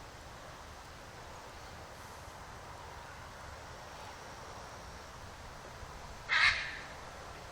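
One short, harsh animal call about six seconds in, over a faint steady background hiss.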